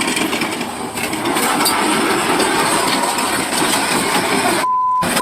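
An engine runs steadily and loudly. Near the end, the sound drops out and a steady high beep tone of a censor bleep replaces it, broken once briefly.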